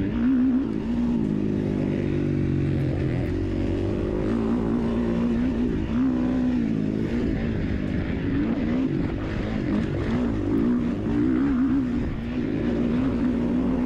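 KTM 450 XC-F four-stroke single-cylinder dirt bike engine running at race pace, its pitch rising and falling as the throttle is worked over the track.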